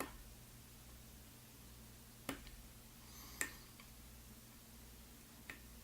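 A few faint, sharp clicks of a lock pick working the pins of an Alfa (GeGe) oval pin-tumbler cylinder, with the pick feeling out a binding pin under tension. The clicks are spaced a second or two apart, and the one a little past the middle is the loudest, over a steady low hum.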